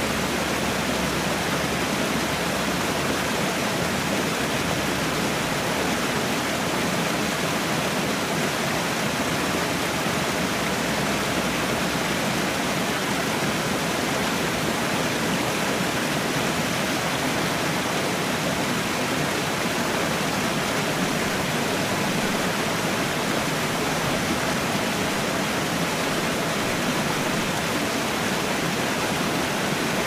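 Cascading waterfall: a steady, even rush of falling water that does not change in loudness.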